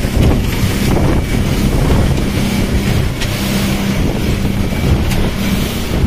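Outboard motor running at speed on a small fishing boat, a steady hum under heavy wind buffeting the microphone and the rush of the wake and spray.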